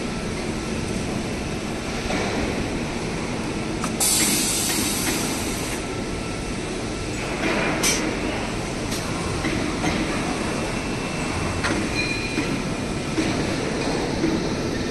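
CNC fiber laser tube cutting machine running steadily, with a burst of hissing about four seconds in and a few sharp metallic knocks.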